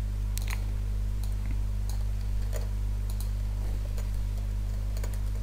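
Scattered, irregular clicks of a computer keyboard and mouse as text is repeatedly pasted into a document, over a steady low hum.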